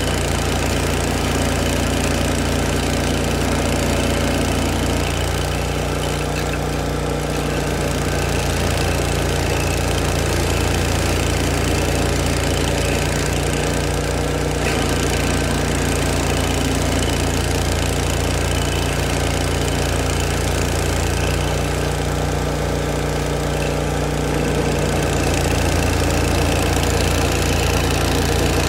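Engine of an old Vermeer stump grinder running steadily, with a slight swell in level near the end.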